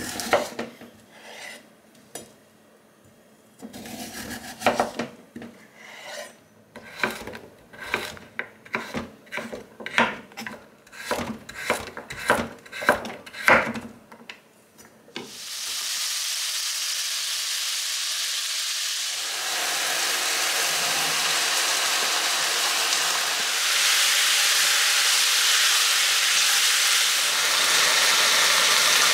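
Knife slicing a carrot on a wooden cutting board, a steady run of strokes about two a second. About halfway through, vegetables sizzling in a frying pan take over, the sizzle growing louder in steps.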